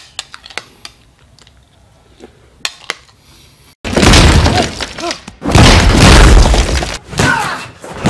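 A few faint clicks, then about four seconds in a sudden, very loud crashing and smashing with shattering glass that lasts about three seconds. Near the end a man yells.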